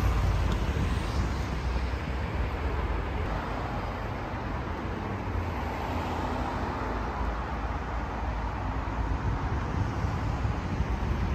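Steady noise of city road traffic, cars passing on a busy multi-lane road, with a low rumble of wind on the microphone.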